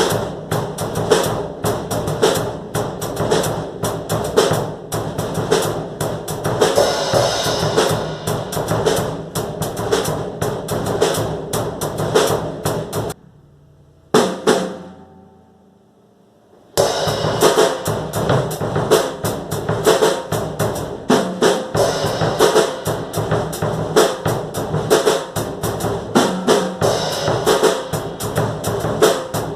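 Drum kit played in a fast, busy groove around a Shelter bass drum left completely undamped, with no pillow or muffling inside, so the kick rings open. The playing stops a little before halfway, one hit rings out into the gap, and the groove starts again a few seconds later.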